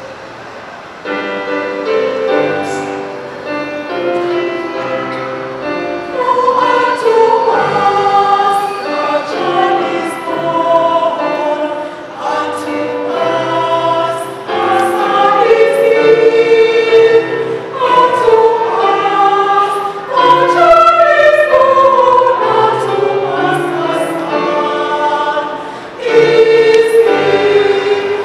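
Mixed church choir singing in parts, its phrases swelling and easing, after a brief hush in the first second.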